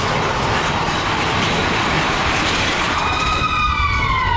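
Mine-train roller coaster cars running through a tunnel on their track with a steady loud rumble and rattle. About three seconds in, a rider lets out a long high whoop that slides down in pitch.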